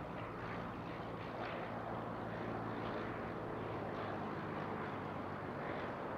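Aircraft engine running steadily: a constant drone that neither rises nor falls.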